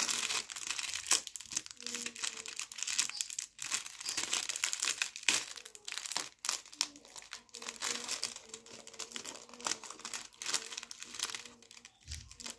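Plastic packet crinkling and crackling as it is handled and opened, in a continuous irregular rustle.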